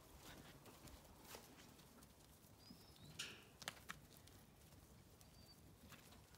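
Near silence, with a few faint knocks and scuffs as a small group of alpacas walks out across a muddy gravel yard.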